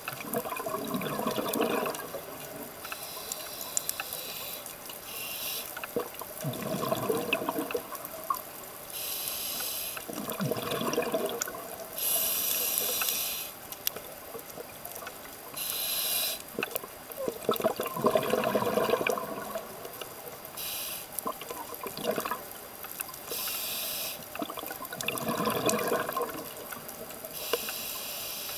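A scuba diver breathing through a regulator, heard underwater: hissing inhalations alternating with bubbling exhalations every few seconds.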